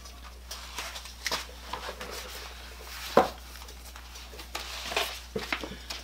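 Books and a plastic-sleeved manual being handled on a wooden bookshelf: rustling of paper and plastic and small knocks of books against the shelf, with one sharper knock about three seconds in, over a low steady hum.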